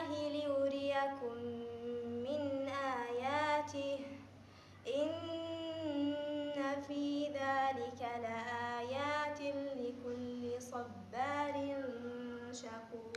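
A female reciter chanting the Quran in a melodic tajweed style, holding long notes with ornamented turns in pitch, with a short pause about four seconds in.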